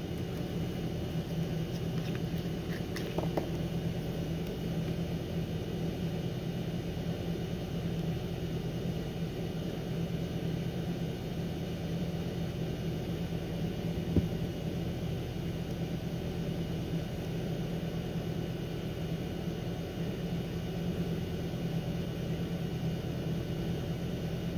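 Steady low room hum with no clear event. There is a faint click about three seconds in and another about fourteen seconds in.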